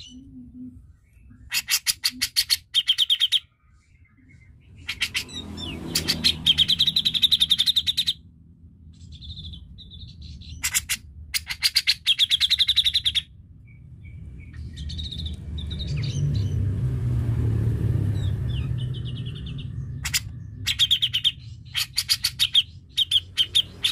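Grey-cheeked bulbul (cucak jenggot) singing in four bursts of fast, rattling trills. A low rumble swells and fades between the third and fourth bursts.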